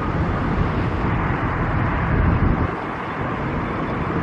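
Steady low rumble of passing vehicle traffic, easing off a little about two and a half seconds in.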